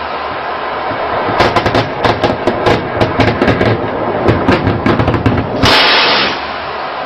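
Automatic gunfire, many shots in quick irregular bursts, over a steady rush of noise. A loud rush of noise lasting about half a second comes near the end.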